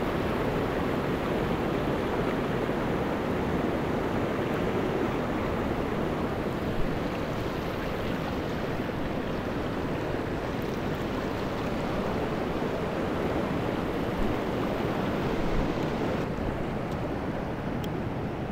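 Mountain stream rushing over rocks, a steady wash of water. A single brief tap about seven seconds in.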